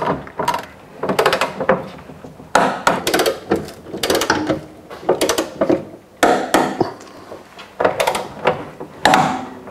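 Ratchet of a torque wrench clicking in short back-and-forth strokes, about one burst of clicks a second, as the towbar crossmember bolts are run down toward their set torque of 62 Nm.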